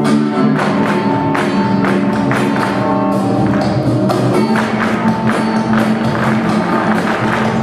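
Flamenco music with sustained pitched notes and sharp percussive hits keeping a steady beat, roughly two a second.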